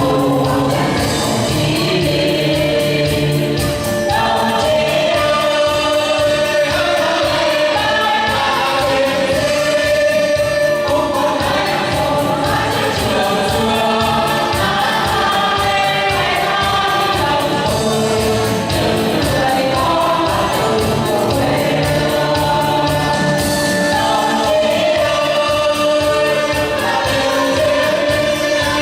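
A choir singing a march over instrumental accompaniment with a steady beat.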